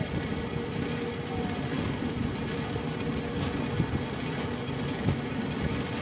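Swat River's water rushing steadily, a continuous deep roar without pauses.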